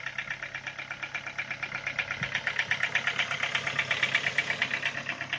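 Ford Focus 2 engine idling with a rapid, even tapping, roughly ten ticks a second. The owner takes the tapping for the hydraulic lash adjusters, and he says it dies away after about ten minutes of warming up.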